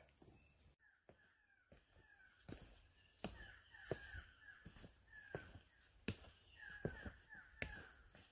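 Faint footsteps on a dirt-and-stone forest trail, about one step every three-quarters of a second from about two seconds in, under repeated short falling bird chirps and a steady high insect buzz.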